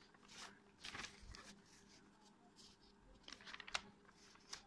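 Near silence with faint paper rustling from sketchbook pages being handled and turned, in two short spells, about a second in and again after three seconds.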